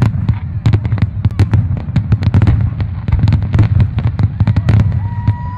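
Fireworks display: a rapid, continuous barrage of bangs and crackles from bursting shells over a steady low rumble.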